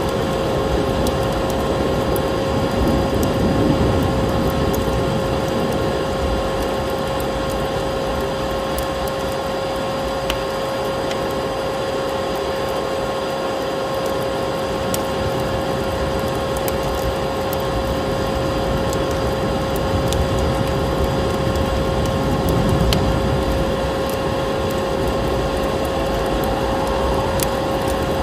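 Vacuum cleaner running steadily, a constant-pitched motor hum over a rushing air noise, layered with scattered fireplace crackles and a low storm-wind rumble that swells and fades.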